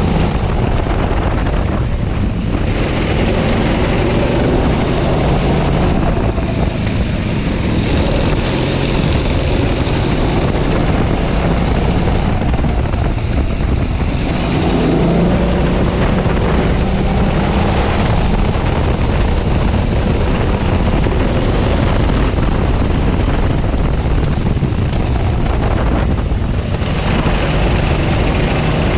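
Onboard sound of a racing kart's engine at race pace. Its pitch climbs on the straights and falls away several times as the throttle lifts for the corners, then rises again on the exits.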